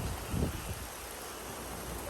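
Steady hiss of rain and wind, with a short gust of wind buffeting the microphone about half a second in.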